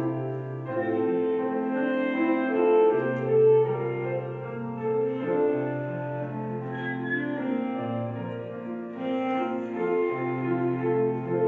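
Live instrumental music heard from the pews of a church: piano with a solo melody instrument, playing long held notes over a steady low bass line.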